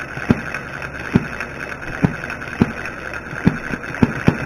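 Small model six-cycle single-cylinder gas engine running slowly, firing with sharp pops at uneven intervals, roughly one to two a second, over a steady hum.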